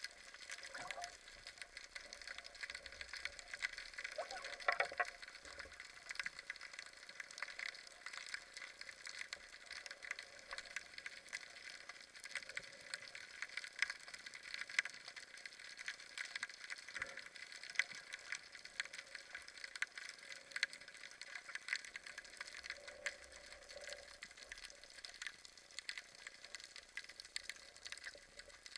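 Underwater ambience picked up by a camera in its waterproof housing: a steady, dense crackle of tiny clicks.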